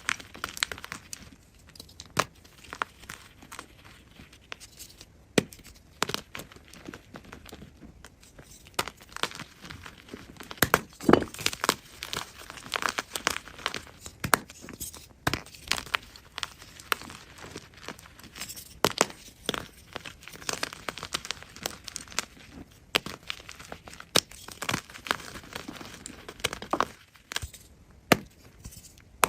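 A block of gym chalk being crushed: irregular dry crunching and crackling as it breaks and crumbles, coming in clusters with short pauses between.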